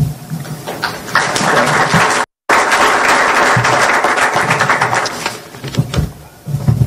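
Audience applauding: the clapping swells about a second in, is interrupted by a brief moment of complete silence, and dies away after about four seconds.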